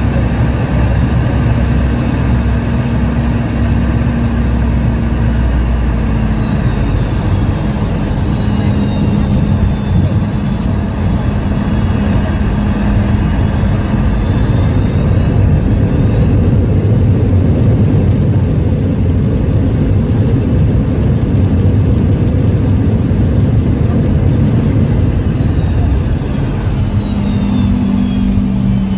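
Jet airliner cabin noise during final approach and landing: a steady engine drone and airflow rumble, with a high engine whine that falls about six seconds in, rises again about fifteen seconds in, and falls once more near the end as the thrust changes.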